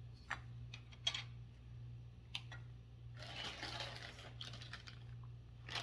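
Plastic model kit parts being handled: a few light clicks and taps, then a soft rustle of a plastic parts bag about three seconds in.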